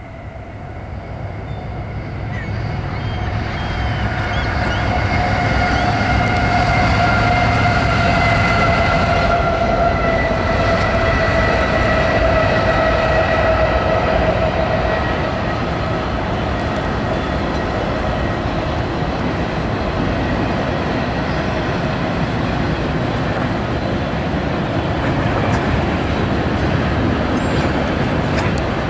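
Freight train passing: the locomotives come up, getting louder over the first few seconds, then double-stack container and trailer cars roll by with steady wheel-and-rail noise. A few high steady tones sound over the first half, slowly dropping in pitch and fading.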